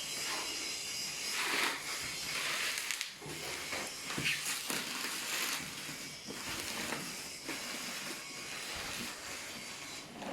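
Cardboard and plastic packaging of a boxed ceiling fan rustling and scraping in irregular bursts as the box is opened and its contents pulled out.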